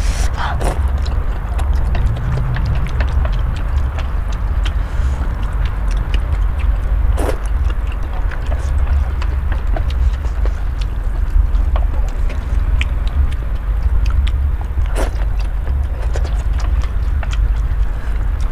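A person slurping and chewing spicy instant noodles, with short wet mouth clicks throughout and a couple of louder slurps, about 7 and 15 seconds in. A steady low rumble runs underneath.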